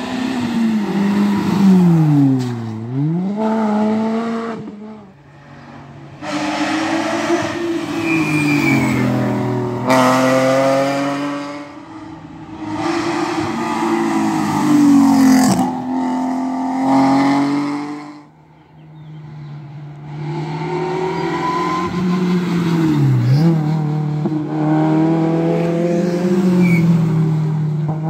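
Rally cars on a closed asphalt stage, several in turn, each engine revving hard as it approaches and passes. The engine pitch drops sharply and climbs again several times, as at each lift and gear change.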